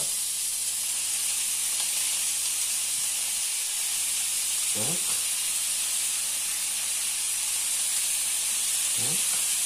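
Pork tenderloin medallions sizzling in hot oil in a non-stick frying pan as more pieces are laid in: a steady frying hiss.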